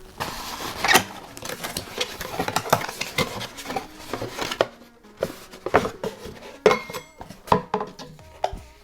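Packaging being handled and a box being opened: cardboard rustling and scraping, with light clicks and knocks from the cookware inside. The rustling is dense for about the first four and a half seconds, then gives way to separate clicks and knocks.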